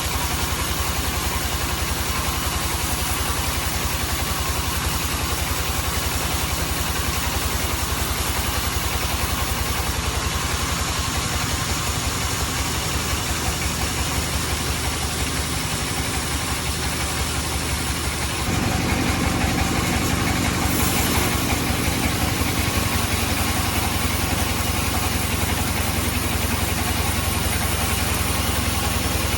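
Band sawmill machinery running with a steady engine-like drone; about two-thirds of the way through the sound deepens and gets louder, then holds steady.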